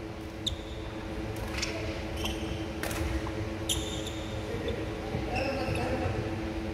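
Court shoes squeaking and scuffing on a wooden sports-hall floor, several short high chirps and sharp taps, over a steady hum.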